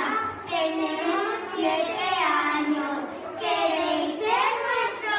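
Children singing a song, unaccompanied.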